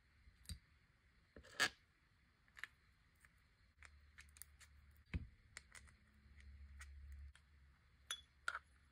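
Faint, scattered clicks and taps of small metal gears and housing parts of a Versamatic 4400 drill speed reducer being handled and fitted together during reassembly, with the sharpest click about a second and a half in and a knock around five seconds in.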